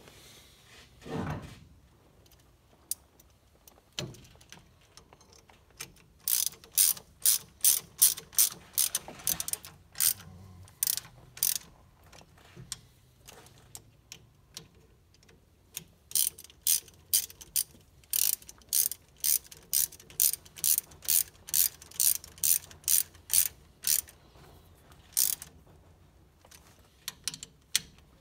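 Hand ratchet clicking in two long runs, a couple of clicks a second, with a few stray clicks between, as the screws holding the overdrive shift-lever bracket to the transmission shift tower are tightened.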